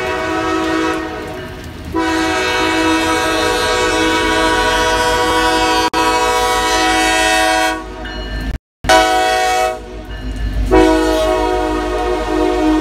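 Union Pacific SD70ACE locomotive horn sounding a chord in long blasts with a short one between: the long-long-short-long signal for a grade crossing. A steady low rumble from the approaching train runs underneath.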